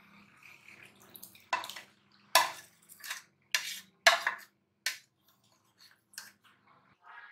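A spoon knocking and clattering against a plate, about seven sharp knocks spread over several seconds, as cut jelly cubes are tapped off it into a steel pot of milk sharbat.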